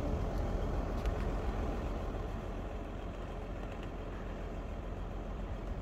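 Jeep Gladiator Rubicon's engine idling, a steady low rumble, with a couple of faint clicks about a second in.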